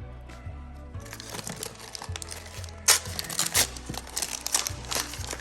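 Plastic wrapping crinkling and crackling as it is pulled open by hand, starting about a second in and loudest midway, over steady background music.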